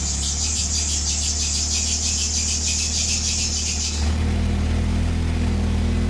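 1995 Jeep Wrangler YJ engine being cranked by the starter with a fast, even pulsing. About four seconds in it catches and settles into a steady idle.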